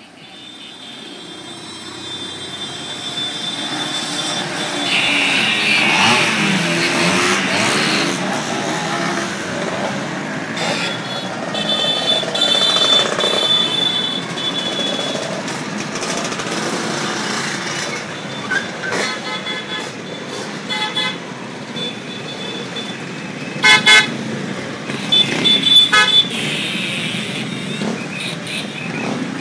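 A procession of Vespa scooters riding past with their engines running, the sound swelling over the first few seconds as they arrive. A run of short scooter horn beeps sounds in the second half, the loudest near the end.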